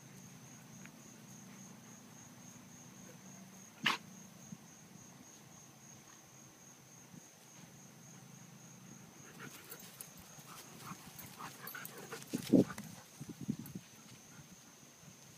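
Two dogs playing chase: scuffling and rustling through grass and shrubs from about nine seconds in, with a short, loud dog bark about twelve and a half seconds in and a softer one a second later. A sharp knock sounds about four seconds in, over a steady high insect drone.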